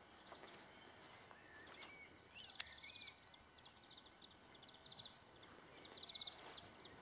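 Faint outdoor ambience with birds singing: short rapid trills and curved whistled phrases. A single sharp click sounds about two and a half seconds in.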